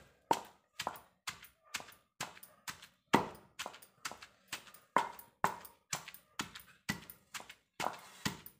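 Wooden pestle pounding mint leaves, cumin and salt in a stone mortar: a steady run of dull knocks, about three a second.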